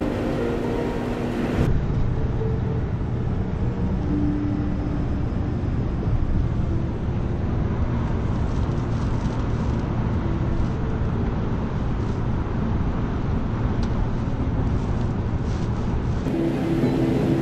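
Steady road and engine noise of a car driving on the highway, heard from inside the cabin. About two seconds in the sound turns duller and heavier.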